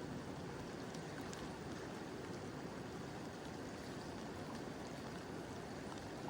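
Mountain river flowing over stones in a steady, even rush, with a few faint drips of rain.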